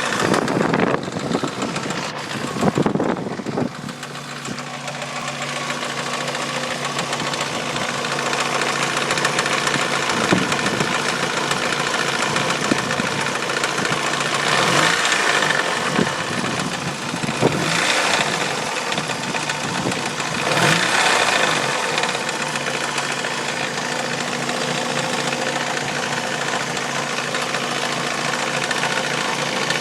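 Mazda Miata 1.8-litre four-cylinder engine running at idle with a rattle, swelling in loudness a few times around the middle. The owner guesses the timing belt tensioner or idler pulley, as the noise stays with the accessory belt removed.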